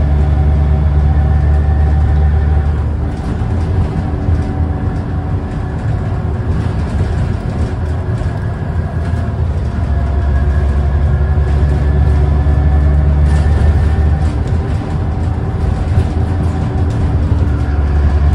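Diesel engine of a moving bus heard from inside the passenger saloon, with road and tyre noise: the engine pulls steadily, eases off about three seconds in, and picks up again at about ten seconds.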